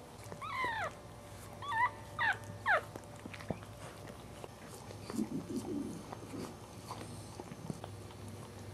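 Newborn Cairn terrier puppy crying: one falling squeal about half a second in, then three short falling squeaks over the next second. Quieter low grunting follows a few seconds later.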